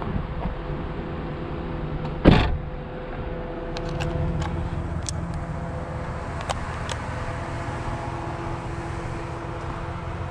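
Pickup truck engine running at low speed with tyre and road noise on a gravel road, and a few small ticks from loose gravel. One sharp loud bang about two seconds in.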